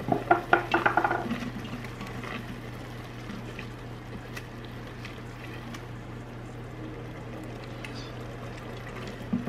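Ground beef in a soy-sauce liquid simmering in an Instant Pot's stainless steel inner pot, with a quick run of knocks and scrapes from a utensil against the pot in the first second or so, then steady soft bubbling over a low hum.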